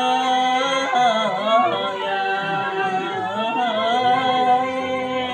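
A man chanting verse in a drawn-out sung style, long held notes broken twice by wavering, ornamented turns.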